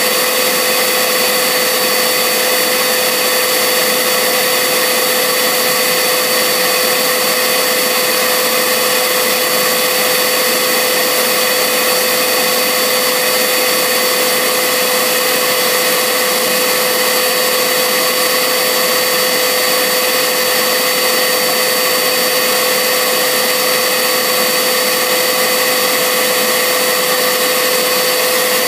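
Bagless upright vacuum cleaner running steadily at full suction: a loud, even rush of air with a steady high whine from the motor over it.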